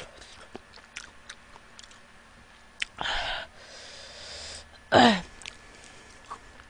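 Small clicks and taps of French fries being picked up and dipped, with a breathy rush about three seconds in and a short vocal sound, falling in pitch, about five seconds in as a fry goes to the mouth.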